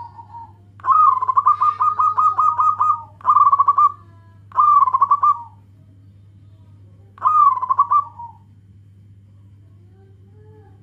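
Zebra dove (local perkutut) in full song: a long phrase of rapid cooing notes, about five a second, then three shorter cooing phrases. A faint steady low hum runs underneath.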